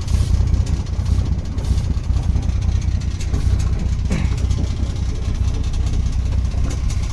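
Houseboat's inboard engine running steadily under way, a deep, even rumble heard up close at the stern, where it makes the kitchen shake.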